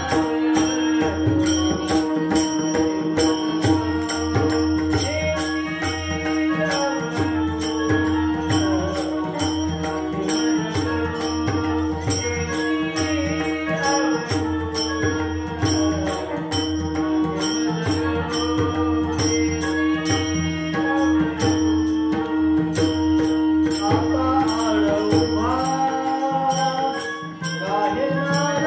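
Devotional music: a voice singing a wavering melody over a steady drone, with jingling percussion keeping an even beat.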